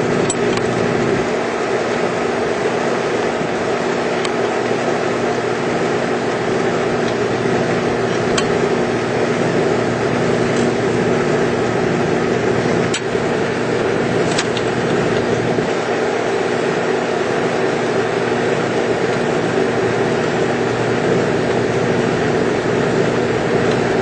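Steady drone of running machinery with constant hum tones, unchanging throughout, with a few faint clicks of hand-tool work.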